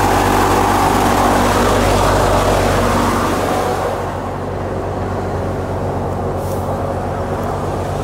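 Wheat thresher running steadily, with the constant low drone of the engine driving it. A rushing noise of straw and grain going through the machine fades about halfway through.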